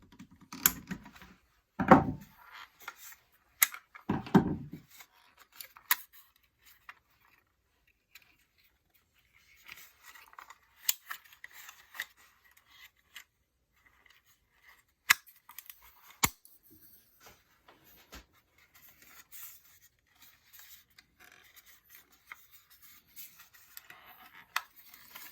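A fire alarm being taken apart by hand: scattered sharp clicks and snips of small plastic and metal parts, with light scraping and rubbing. There are two dull knocks in the first few seconds and a short pause near the middle.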